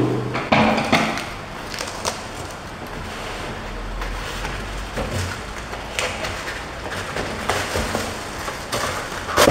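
Scissors cutting and scraping through clear packing tape along the edges of a cardboard box, with irregular snips, scrapes and cardboard rustling as the box is handled.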